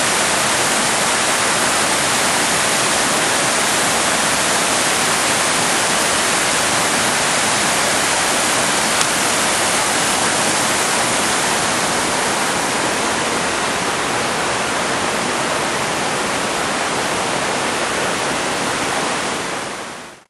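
Water of a small waterfall and its rapids rushing down over granite, a steady dense roar of white water. It fades out at the very end.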